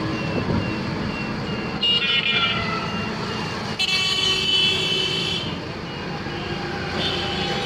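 Street traffic heard from a moving open auto-rickshaw: a steady rumble of road noise, with a high-pitched vehicle horn sounding three times, about a second or more each.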